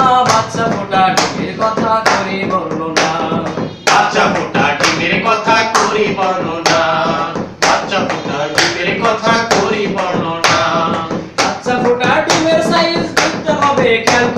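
Men singing a Bengali song in unison, the beat kept by a sharp hand-struck clap or tap about once a second.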